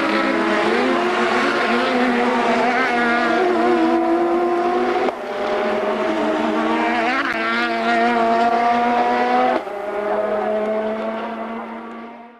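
A pack of European Touring Car Championship touring cars racing past, several engines at once revving up and down with their pitch rising and falling. The sound cuts abruptly twice and fades out at the end.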